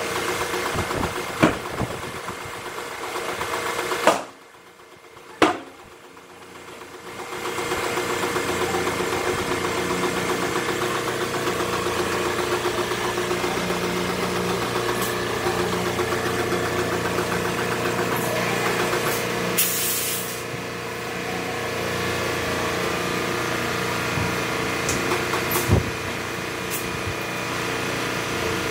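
Butler HP tire changer running with a steady motor hum while a tire is worked onto an alloy rim, with a few sharp metallic knocks. The hum drops away for a few seconds near the start, and a short hiss of air comes about two-thirds of the way through.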